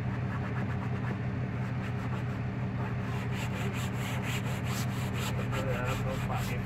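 A cloth scrubbed back and forth against a car's fabric headliner, in quick rubbing strokes that grow sharper and more distinct from about three seconds in, over a steady low hum.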